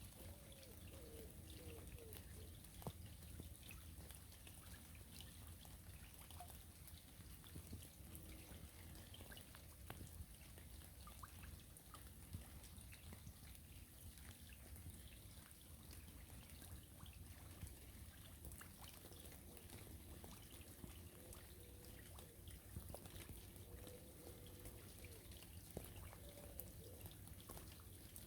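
Faint steady patter of rain falling on a river, many small drops ticking over a soft continuous wash of water.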